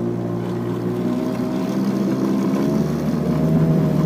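Parsun 5.8 outboard motor running in forward gear as the throttle is opened: the engine note grows louder and climbs slightly in pitch as the boat picks up speed.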